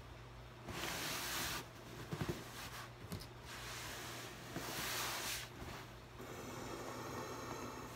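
Hands rubbing over a shirt stretched on an inflated belly: fabric swishing in several stretches of about a second, with a few soft knocks, over a steady low hum.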